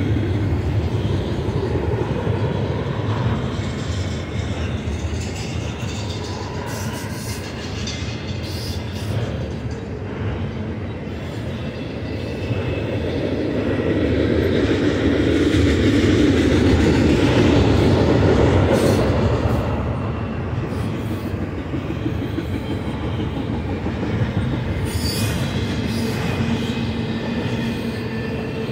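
Double-stack container well cars of a freight train rolling past: a steady rumble of steel wheels on the rails with clatter, swelling louder for a few seconds around the middle.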